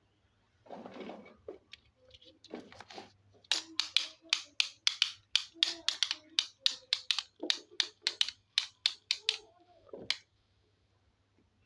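Hard plastic toy animal figures being handled and set down on a surface: a brief rustle, then a quick run of sharp clicks and taps, about three or four a second, for several seconds.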